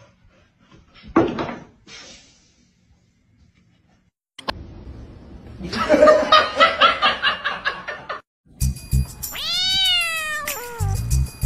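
A knock about a second in, then a few seconds of music, then a cat meowing: one long call that rises and falls, followed by a shorter one.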